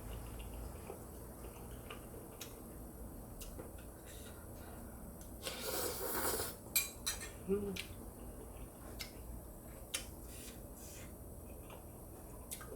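Eating sounds from a bowl of seafood ramyun noodles: scattered light clinks of utensils against the bowl, and about six seconds in a louder slurp lasting about a second.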